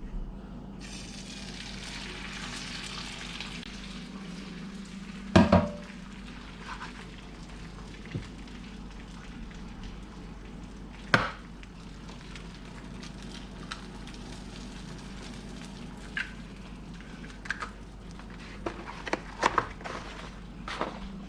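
Egg whites frying in a pan: a steady sizzle that comes up about a second in, strongest over the next few seconds. Sharp knocks sound a few times over it, the loudest at about five and eleven seconds in, with a cluster near the end.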